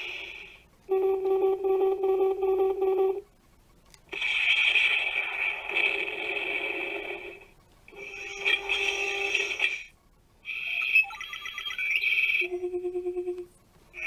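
A Hasbro Iron Man 3 Arc FX toy mask playing its electronic sound effects through its small speaker: about five short effects one after another with brief gaps, some steady beeping tones and others harsher, noisier bursts.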